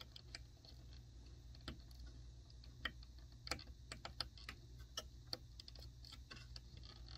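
Faint, irregular small plastic clicks and ticks as a 4-pin wire connector is fiddled with and pushed into its socket on a control board.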